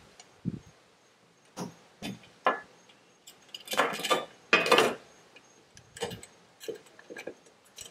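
Black cover of a Rough Country MLC6 relay box being handled and pressed down over the relay board by gloved hands: a series of light clicks and knocks, with two longer rubbing sounds about four seconds in.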